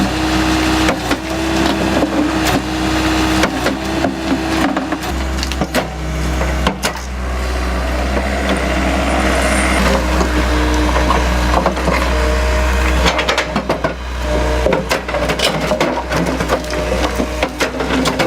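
Excavator engine running under load while a hydraulic crusher bucket crushes concrete and sandstone, with a steady stream of sharp cracking and knocking from the breaking stone. The engine's deep note grows louder for several seconds in the middle.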